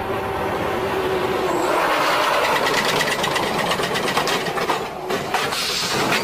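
Armored military truck driving fast with its engine running, then braking hard from about two seconds in, its tyres skidding on the pavement with a rapid chatter.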